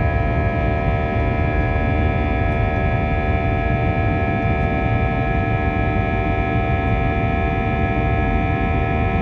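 Steady drone of an Airbus A320-232 in flight, heard inside the cabin: its IAE V2500 engines hum with a set of fixed steady tones over a low rumble of engine and airflow noise.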